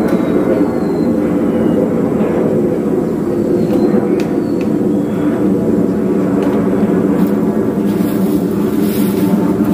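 Boat engine running steadily at a constant speed, with a deep, even drone.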